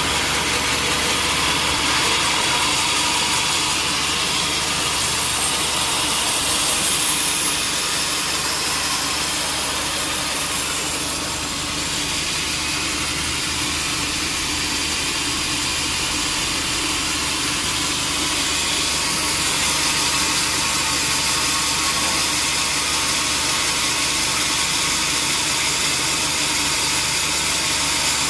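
Sawmill machinery running: a steady, loud mechanical drone with a hiss that holds without a break.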